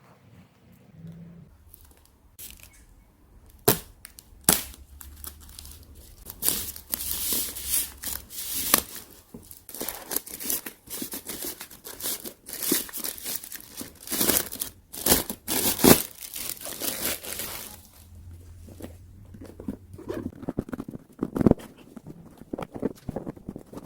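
Plastic and paper packaging being torn open and crinkled by hand during unboxing: a run of crackling tears and sharp rustles, loudest in the middle, then quieter handling near the end.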